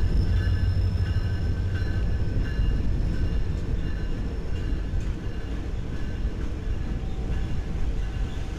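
A train rolling past with a steady low rumble that eases slightly, and faint high thin tones coming and going over it.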